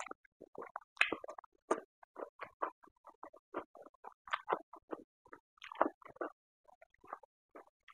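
Close-miked eating sounds of a person chewing pork curry and rice eaten by hand: many quick, irregular mouth smacks and chewing noises, a few each second.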